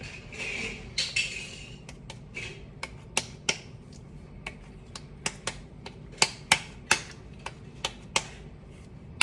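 Hands patting and slapping soft dough while shaping meat pies: a brief rustle at first, then a run of sharp irregular slaps, loudest about six to seven seconds in.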